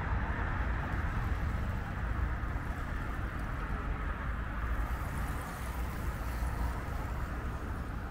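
Steady low rumble and rush of distant highway traffic.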